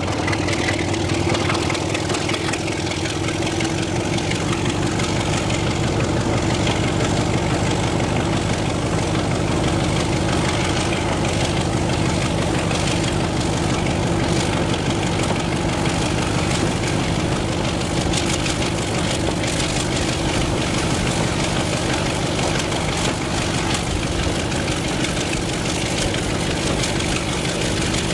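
Diesel locomotive engine running steadily, heard from a carriage of the train it is hauling, with a constant low drone and an even mechanical beat.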